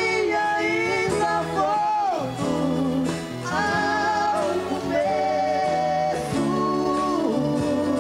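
Two male voices singing a sertanejo song in two-part harmony over band accompaniment, with long held notes and vibrato.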